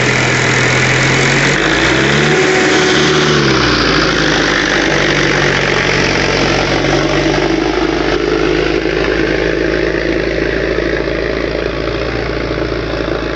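Indo Farm 3055 tractor's diesel engine running steadily as it pulls a disc harrow through the soil, its pitch rising and falling briefly about two to three seconds in, over a steady rushing noise.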